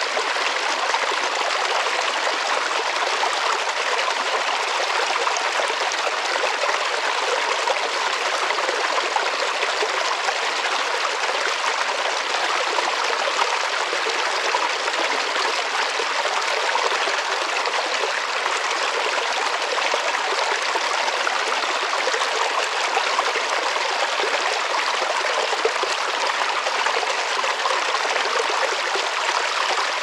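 Small woodland stream trickling and splashing over rocks in a little cascade: a steady, unbroken rush of water.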